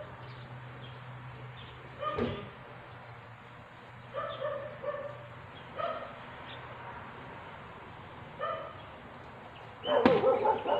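A dog barking in short, separate barks spread out over several seconds, with a louder quick flurry of barks near the end. A single sharp knock comes about two seconds in, over a low steady hum.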